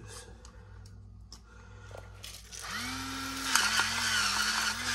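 Battery electric gravity salt grinder switching on about two and a half seconds in: its small motor runs with a steady whine while the ceramic burr crunches pink salt crystals in a dense crackle.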